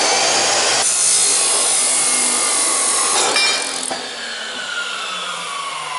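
Power chop saw cutting through a steel bar, a loud steady grinding cut. About four seconds in the cut ends and the blade spins down with a falling whine.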